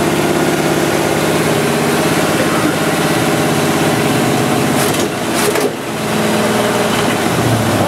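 Brand-new GM Performance HO 350 small-block V8 with a Holley 670 cfm double-pumper carburettor idling on one of its first runs, still being tuned. It runs steadily with a brief dip in level a little past halfway.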